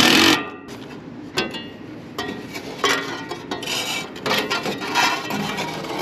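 A new sheet-metal condenser fan blade and its hub being handled and fitted onto the fan motor's shaft: a loud burst of tool noise in the first half second, then scattered clinks and scrapes of metal.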